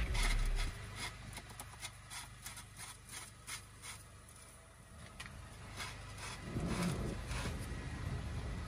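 Light clicks and scraping of hand-work on the plastic oil filter housing caps of a PACCAR MX-13 truck engine, followed about six and a half seconds in by louder rubbing and rattling of tools against the housing.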